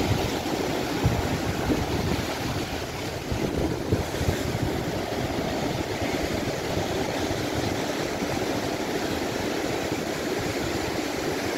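Ocean surf breaking and washing in the shallows, a steady rushing wash of water, with wind buffeting the microphone in low rumbling gusts.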